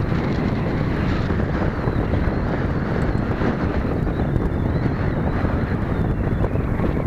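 Wind buffeting the microphone. From about four seconds in, a faint, high, wavering whine comes from the model's small Cox glow engines running in the air.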